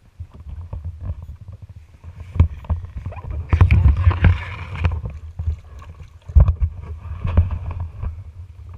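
Kayak being paddled: water splashing with the strokes, loudest from about three and a half to five seconds in, with sharp knocks over a low rumble.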